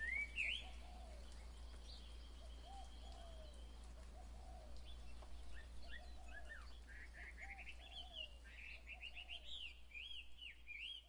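Birds chirping: many quick rising-and-falling chirps, sparse at first and growing busier from about halfway through, with lower arched calls beneath and a faint low hum.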